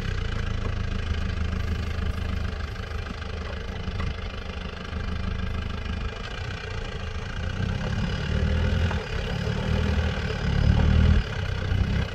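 M1163 Growler's engine pulling under load as the vehicle climbs a loose dirt slope. Its level swells around eight seconds and again near eleven, then drops off suddenly.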